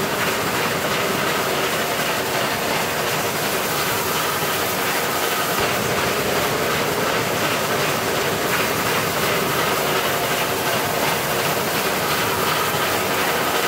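South African Railways Class 25NC steam locomotive running under way, heard from inside the cab: a steady, even din of steam, working machinery and wheels on the rails.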